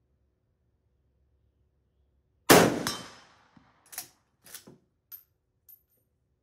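A single shot from a Swiss K11 rifle in 7.5x55mm Swiss, about two and a half seconds in, with a long fading echo. A second and a half later come several short metallic clicks and clacks, the straight-pull bolt being worked to eject the case and chamber the next round.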